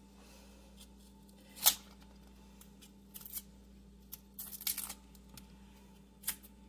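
Kitchen knife peeling and trimming the papery skin of an onion held in the hand: scattered small crackles and scrapes, with one sharper click a little under two seconds in and a short flurry past the middle.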